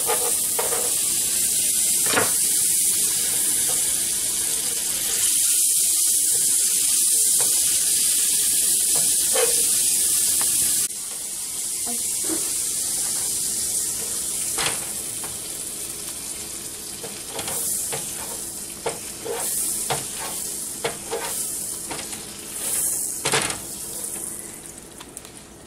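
Butter sizzling on a hot griddle, loud for the first ten seconds or so and then quieter, with scattered clicks and scrapes of a spatula against the pan.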